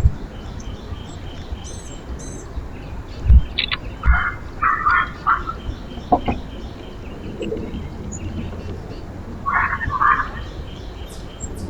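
Birds calling at a backyard feeder, two clusters of short chirping calls with fainter high chirps around them. There are two low thumps about three and four seconds in.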